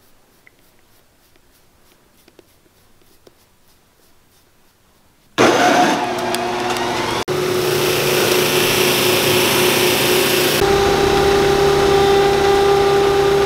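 Motorised shoe finishing machine running, its spindle spinning edge and buffing wheels with a steady, loud motor hum. It comes in abruptly about five seconds in, after a quiet stretch with a few faint taps, and changes in tone partway through as a boot's sole edge is worked against a wheel.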